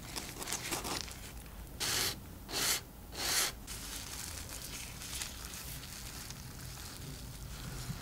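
Crisp fried crust of a potato-dough beef pie crackling and tearing as it is squeezed and pulled apart by hand, in three short loud crunches between about two and three and a half seconds in, with light rustling before them.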